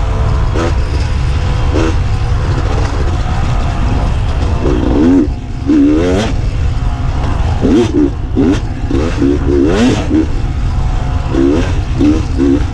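Beta 300 RR two-stroke dirt bike engine under way, revving up and down over and over as the throttle is opened and closed, over a constant low rumble, with a few sharp knocks.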